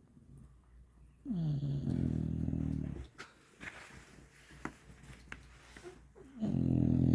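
A sleeping dog snoring: two long, low rumbling snores about five seconds apart, the first starting with a falling pitch and the second beginning near the end.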